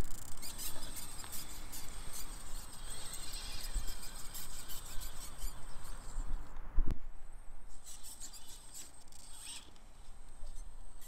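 Axial Capra UTB18 micro RC rock crawler crawling over rocks: a steady high-pitched whine from its electric drive and servos, with tyres and chassis scraping and clicking on stone. A sharp knock sounds about seven seconds in, after which the whine briefly drops out.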